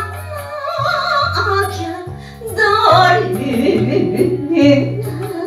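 A woman sings into a handheld microphone over a karaoke backing track with a steady bass line.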